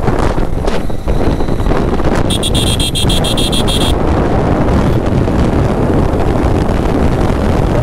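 Motorcycle running at road speed with wind rushing over the microphone. About two seconds in, a high-pitched vehicle horn sounds once for under two seconds.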